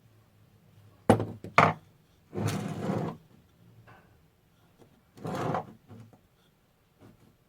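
Two sharp knocks on something wooden-sounding, about half a second apart, followed by two short scraping strokes.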